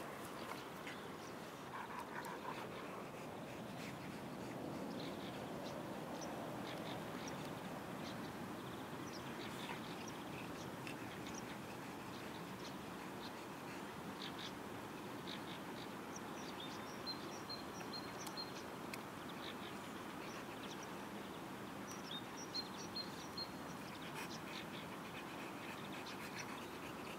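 Small birds chirping in short, scattered calls, with a couple of quick repeated phrases about two-thirds of the way in and again near the end, over a steady outdoor hiss.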